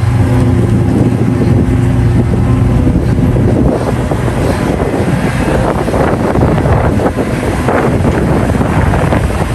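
Hitachi Zaxis 670LC excavator's Isuzu diesel engine running steadily with a low hum, with wind buffeting the microphone. After about three seconds the sound turns rougher and noisier as the machine works.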